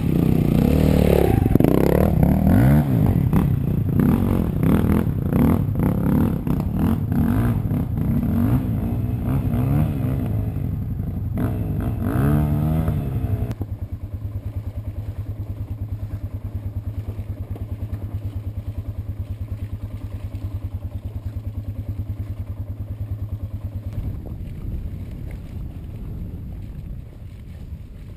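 Yamaha TW200's air-cooled single-cylinder engine running on a dirt trail, revs rising and falling, with another dirt bike's engine close by. About halfway through the sound changes suddenly to a steady, even idle pulse as the bike rolls downhill.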